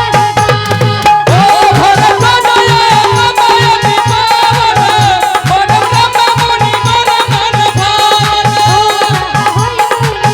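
Instrumental interlude of Indian devotional music: hand drums keep a steady, even beat under a bending, wavering melody line.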